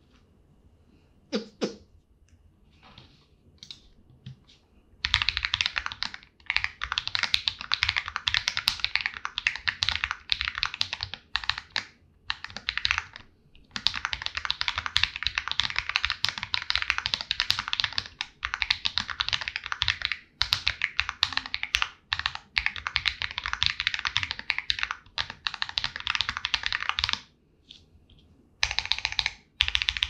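Fast typing on a DAGK Alloy40 Pro, an aluminium-cased 40% mechanical keyboard fitted with lubed Akko Wine White tactile switches: dense runs of keystrokes broken by short pauses. There are only a few scattered keystrokes at first, fast typing from about five seconds in, and a pause of about a second and a half near the end.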